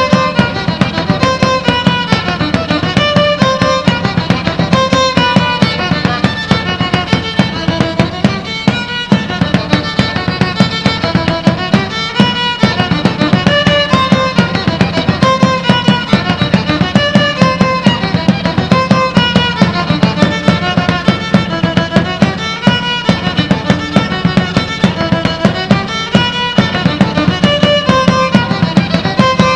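Violin playing a folk dance tune over a steady beat.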